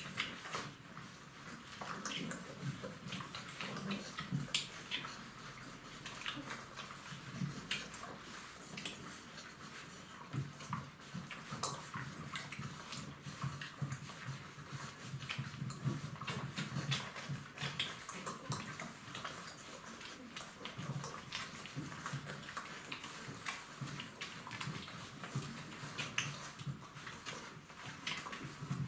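Golden retriever puppies suckling from their standing mother: a steady, irregular stream of wet smacking and slurping clicks.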